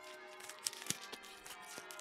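Background music of short, sharp plucked-sounding notes over a few held tones.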